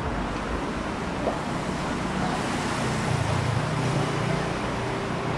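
City street traffic: motor vehicles passing, with a low engine rumble swelling about halfway through as one goes by, and a steady engine hum setting in near the end.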